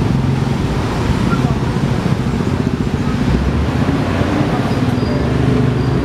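Dense traffic of many small motorcycle and scooter engines running steadily, with cars mixed in, as the crowd moves across a railway level crossing once the barrier is up.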